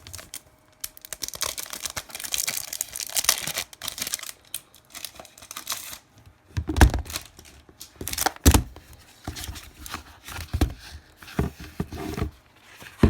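Wrapping being torn and crinkled open on a small notebook, with several sharp knocks and taps in the second half as it is handled.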